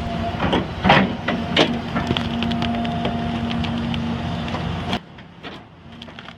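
Heavy land-clearing machinery working: a steady engine hum with irregular sharp knocks and cracks. It drops off abruptly about five seconds in to a quieter hum.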